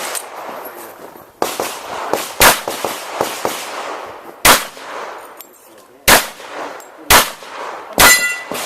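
Pistol shots fired during a USPSA stage: five loud, single reports at irregular spacing, with fainter cracks between them. A ringing metallic tone after the last shot is a steel target being hit.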